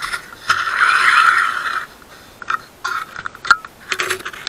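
Camera handling noise as the camera is carried and set down on a wooden workbench: a scraping rub lasting about a second, then a string of short clicks and scrapes as it is settled.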